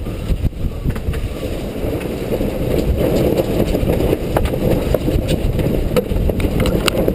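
Wind buffeting the microphone on a sailboat: loud, rough low noise that swells and eases, with a few faint clicks.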